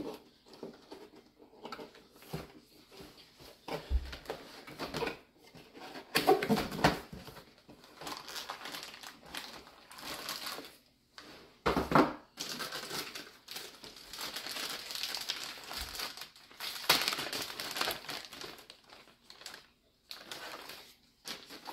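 Motherboard packaging being handled: cardboard box and plastic anti-static bag crinkling and rustling in irregular bursts, with a few dull knocks.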